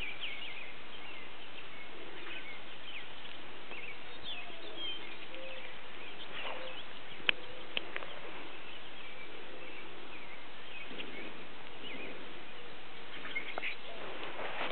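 Outdoor ambience: a steady hiss with scattered faint, high, short chirps, and two sharp clicks about seven seconds in.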